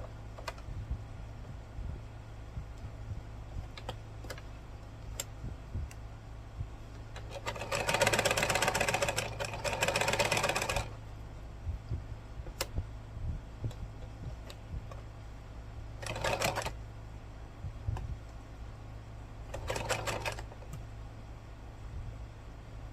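Montgomery Ward Happy Lite sewing machine stitching, freshly cleaned and oiled: one run of about three seconds a third of the way in, then two short bursts later, with scattered clicks between.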